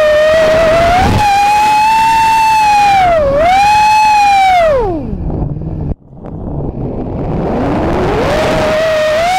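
Vortex Pro FPV racing quadcopter's motors whining, the pitch rising and falling with the throttle. About five seconds in the whine drops away as the throttle is cut, leaving a rush of wind. About seven and a half seconds in the whine climbs back as power returns.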